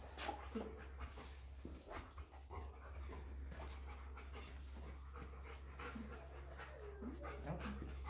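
Dog panting and sniffing as it searches, in short noisy breaths over a steady low hum.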